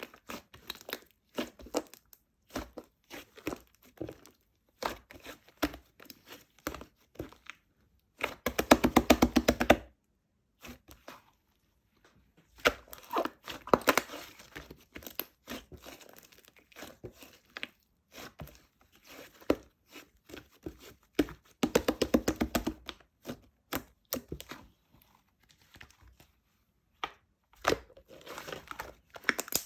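Close handling sounds: crinkling and crumpling with scattered clicks, and two longer rasping tears, about eight and twenty-one seconds in.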